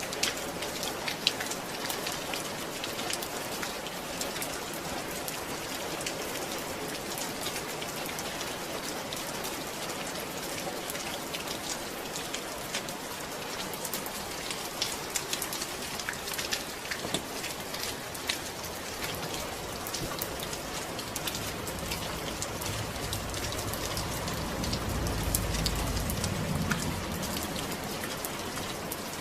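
Steady rain falling, with many separate drop hits over an even hiss. Near the end a low rumble swells and fades.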